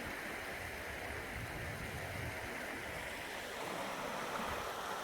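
Creek swollen with snowmelt, rushing steadily over a beaver dam.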